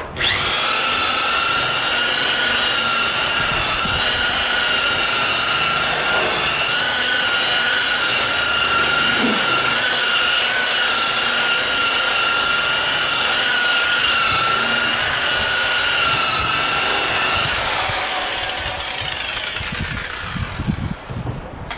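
A DeWalt electric buffer with a wool pad, polishing compound into car paint. It starts suddenly and runs as a high, steady whine, the pitch dipping slightly now and then, for about seventeen seconds. It is then switched off and winds down, the whine falling and fading.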